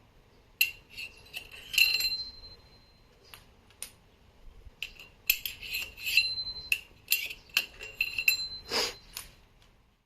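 Metal-on-metal clinks and clatter of hand tools and small engine parts being handled, several leaving a short ringing tone, in two busy runs of taps.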